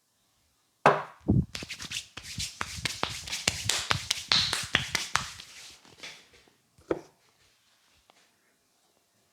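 Rapid hand slaps and chops of a barber's head massage, a quick run of sharp strikes for about five seconds. One more single sharp knock follows near the end.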